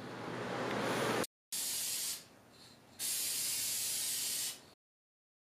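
Aerosol spray-paint can spraying in three bursts of hiss: one that stops about a second in, a short one right after, and a longer one that cuts off suddenly near the end.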